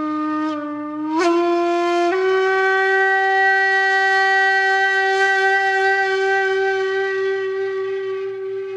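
Music: a solo shakuhachi bamboo flute playing a slow, breathy honkyoku phrase. A low note bends up in pitch about a second in and again about two seconds in, then becomes one long held note that wavers slightly and slowly fades.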